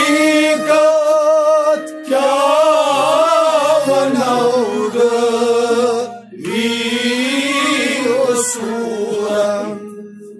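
Kashmiri Sufi song: a man singing long, wavering held notes over a steady drone accompaniment, in phrases that break briefly about two and six seconds in.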